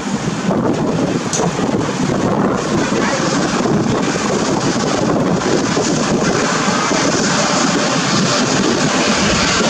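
Tze-Chiang limited express electric train pulling out of the station: a steady rumble of running noise that grows slightly louder, with wind buffeting the microphone.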